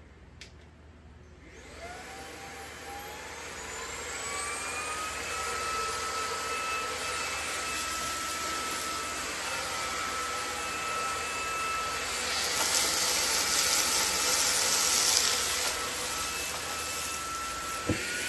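Cordless stick vacuum, used as a handheld with a brush attachment, starting up: its motor spins up with a rising whine, then runs steadily with a high whine over the hiss of suction. The hiss grows louder about twelve seconds in, and a click comes near the end.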